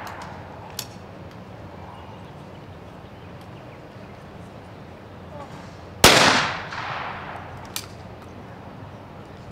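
A single trap shotgun shot about six seconds in, its report ringing out and dying away over about a second. The tail of an earlier shot fades at the very start, and a short sharp click comes shortly after each shot.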